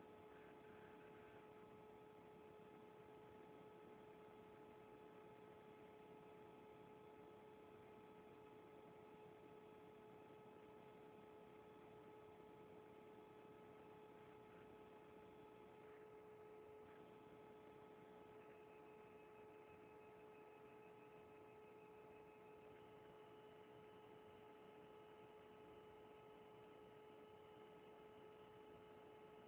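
Near silence with a faint steady electrical hum, one constant tone with a few higher overtones, over light hiss.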